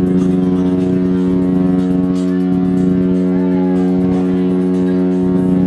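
Cruise ship's horn sounding one long, loud, steady blast on a single low pitch as the ship sails out of port.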